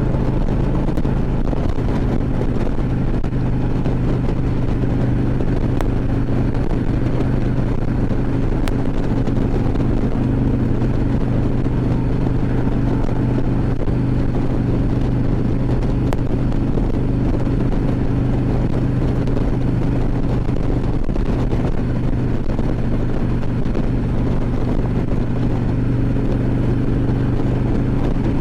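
2014 Harley-Davidson Ultra Classic Limited V-twin motorcycle running at a steady highway cruise, its engine note holding even, with wind rushing over the helmet microphone.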